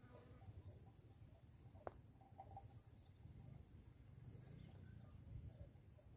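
Near silence: faint open-air ambience with a steady high-pitched insect drone, and a single sharp tick about two seconds in.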